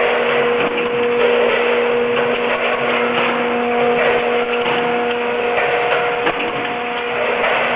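Vertical form-fill-seal packaging machine with its weigher running: a steady machine hum with a held tone under a busy clatter of small mechanical clicks and knocks.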